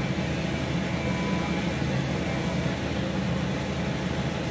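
Komatsu hydraulic excavator's diesel engine running steadily while its grapple arm works.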